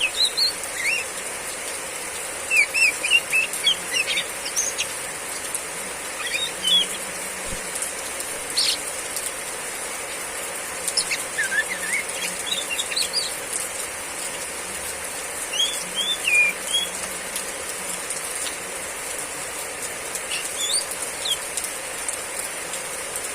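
Female oriental magpie-robin (kacer) giving short bursts of high chirping 'riwik' calls, a cluster every few seconds, over the steady hiss of heavy rain.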